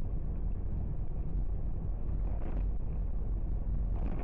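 A car driving, a steady low rumble of engine and road noise. Short swells of hiss come about halfway through and again near the end.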